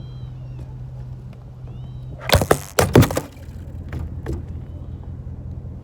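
A camera on a makeshift stand blown over by the wind, knocking and clattering as it falls. Two loud hits come about two and three seconds in, with a few smaller knocks after.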